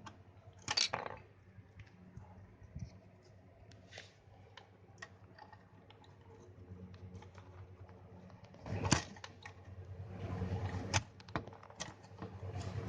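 Scattered small metallic clicks and scraping from hand tools and hardware as a ground wire is bolted to a refrigerator's metal body, with louder scraping about a second in and again near the end.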